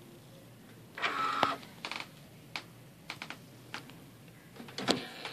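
HP OfficeJet Pro 8500 printer running its internal process after new printheads are fitted: a brief motor whir about a second in, then scattered mechanical clicks and clacks, the loudest cluster near the end.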